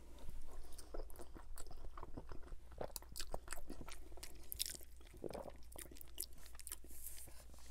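Close-miked chewing of a mouthful of spaghetti bolognese: many small, irregular wet mouth smacks and clicks, quiet throughout.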